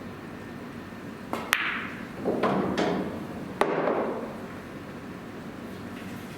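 Pool balls during a shot on a billiard table: a light tap of the cue on the cue ball, then sharp clacks of balls striking each other and knocking against the cushions over about two and a half seconds. The two sharpest clacks come about two seconds apart.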